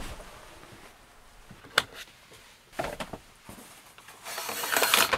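A few light clicks and knocks, then the van's front blackout curtain being pulled across near the end: fabric rustling and metal curtain rings scraping along the rail.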